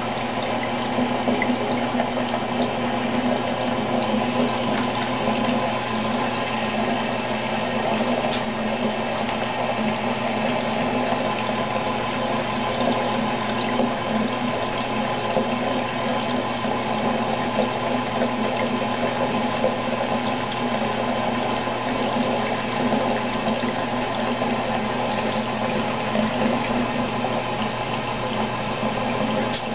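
Bathtub tap running, water pouring steadily into a filling bubble bath.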